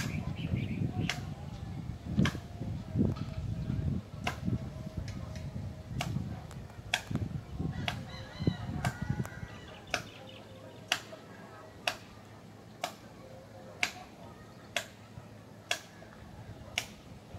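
Sharp taps repeating at a steady pace of about one a second, each with a short ring, over a low rumble that drops away about ten seconds in.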